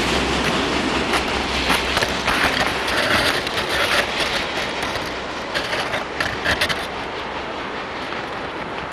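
Freight train's covered hopper cars rolling past, a steady rumble of steel wheels on rail with irregular clacks over the rail joints; the sound eases a little about seven seconds in.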